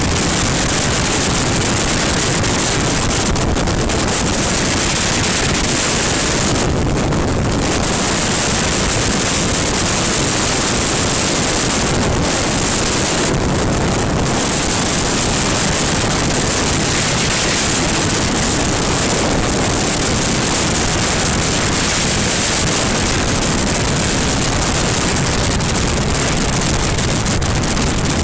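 Steady rush of wind over the microphone of a BMW R1200GS Adventure motorcycle riding at speed on a dual carriageway, with the bike's engine and tyre noise beneath it.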